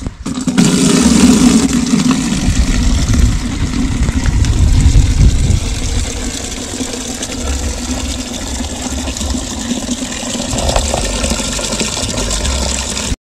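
Tap water pouring in a steady stream into a plastic bucket, a continuous rushing splash.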